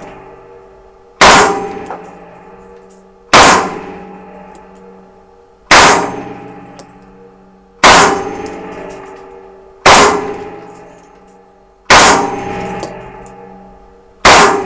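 Sterling L2A3 9×19 mm submachine gun firing single shots from its open bolt: seven shots about two seconds apart. Each shot is followed by a long metallic ringing decay in an indoor range.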